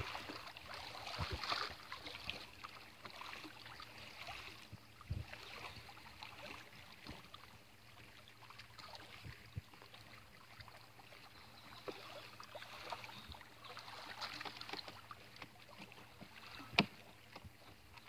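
Faint outdoor ambience: a soft hiss with scattered light clicks and rustles, and one sharp click near the end.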